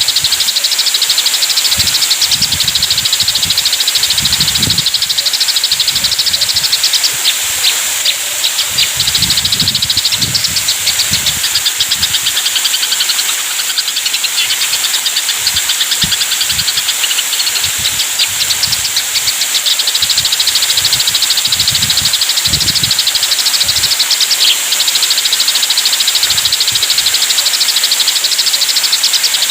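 Eurasian tree sparrows chattering in fast, dense runs of high chirps, the agitated calls of sparrows fighting, over a steady hiss with occasional low rumbles.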